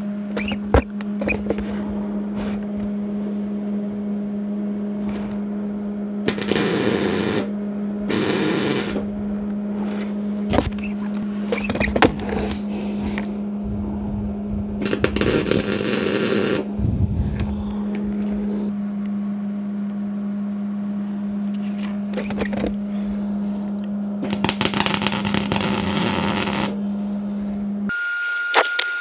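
Wire-feed (MIG) welder arc crackling in four bursts of one to two seconds, with a few brief tack blips, as steel mount tabs are welded on. A steady low hum runs under it and stops near the end.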